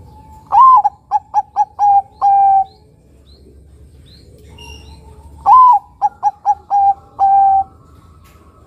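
Zebra dove (perkutut, Bangkok contest strain) singing two cooing phrases a few seconds apart, each a long arched opening coo followed by four quick clipped notes and a drawn-out final note.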